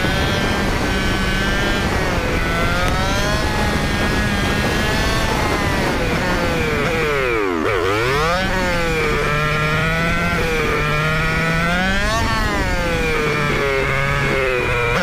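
Motorcycle engine heard from the rider's own bike, its pitch rising and falling with the throttle, dropping sharply about halfway and then climbing again, with wind noise on the microphone.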